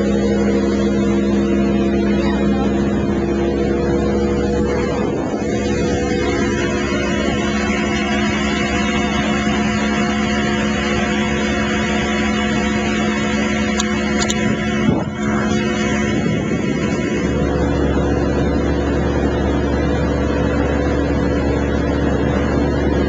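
Motorboat engine running steadily under way, with low wind rumble on the microphone and a single brief knock about two-thirds of the way through.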